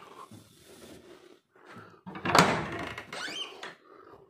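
Wooden room door being opened: a sharp clack about halfway through, followed by a brief squeak.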